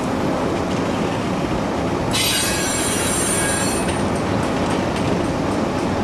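Freight train rolling past, a steady noise of wheels on rail, with a high-pitched wheel squeal from about two seconds in that stops before the four-second mark.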